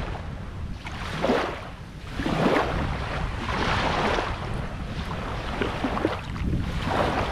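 Shallow seawater washing and swishing in repeated swells about every second or so, with wind rumbling on the microphone.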